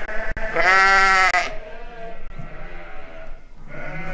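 Sheep bleating: one loud, quavering bleat about half a second in, lasting about a second, then fainter bleats.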